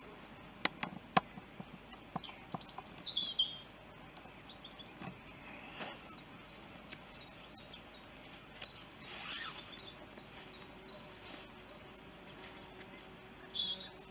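Small birds chirping and singing, with a few sharp clicks about a second in and a brief rustle around nine seconds.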